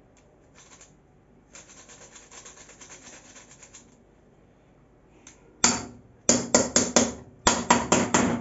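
Fresh ginger being grated on a hand grater in quick strokes. A soft run of strokes comes first; from about the middle, a louder series of sharp strokes follows at four or five a second.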